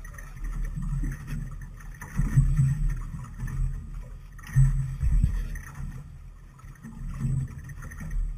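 Small fishing boat on the water: water slapping and sloshing against the hull in irregular low surges.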